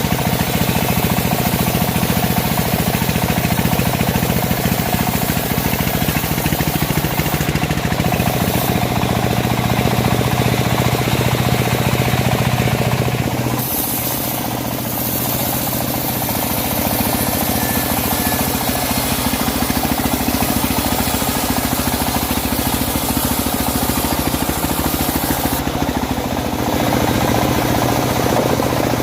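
Engine-driven home-built bandsaw sawmill running steadily while sawing teak logs. Its engine note drops a little about halfway through, and the sound grows slightly quieter before picking up again near the end.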